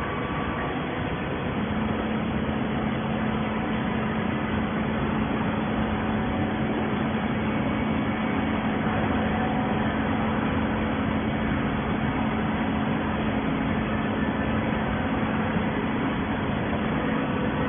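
Hydraulic shredded-paper baler running, its motor and hydraulic pump giving a steady mechanical noise with a steady hum that strengthens about a second and a half in.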